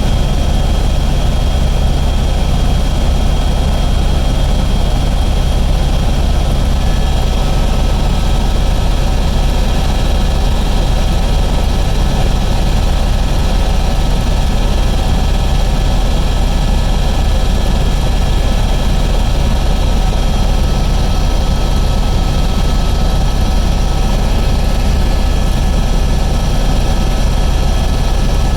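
Airbus H125 (AS350) helicopter in flight: a steady, loud drone of the main rotor and its single turbine engine, with a constant high turbine whine over a deep rumble.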